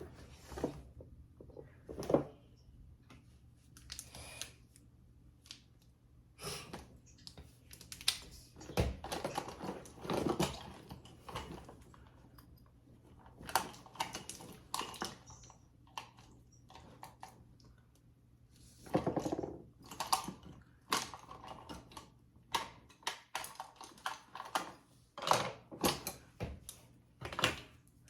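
Irregular light clicks and clatter of makeup brushes and other small items being picked up, handled and set down while brushes are sorted out.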